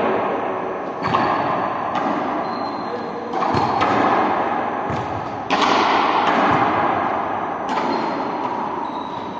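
A ball thudding on a hard sports hall floor several times at irregular intervals, the impacts echoing in the large room.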